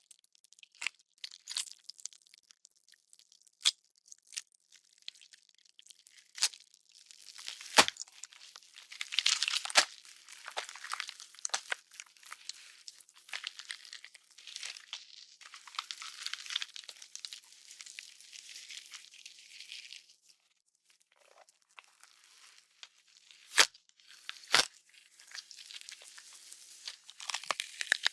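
Designed horror gore sound effects: wet flesh tearing and squishing, broken by several sharp bone cracks, the loudest about eight seconds in and two close together near the end. The tearing eases off into a brief lull about two-thirds of the way through.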